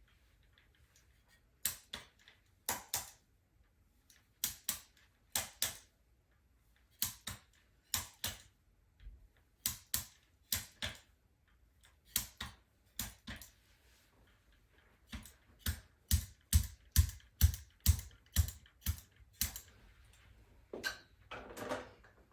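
A long series of sharp clicks, mostly in close pairs spaced about a second apart. Past the middle they turn into a faster, louder run of about three a second, with a low thud under each click.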